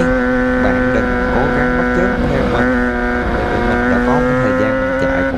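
Suzuki GSX-R750 inline-four engine running at high, nearly steady revs while the motorcycle is ridden at speed through a curve.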